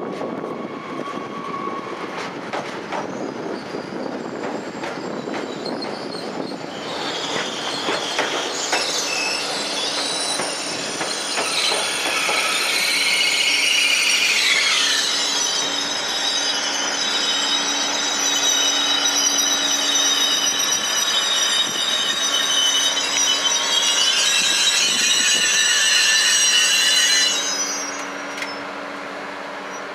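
Bombardier AGC railcar rolling into the station with a rumbling approach, then a high-pitched metallic squeal about a quarter of the way in as it slows. The squeal stops shortly before the end as the train comes to a halt.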